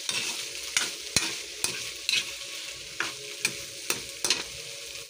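Sisig tuna with mushrooms and chilies stir-frying in a pan: a steady sizzle, with the irregular clack and scrape of the stirring utensil against the pan.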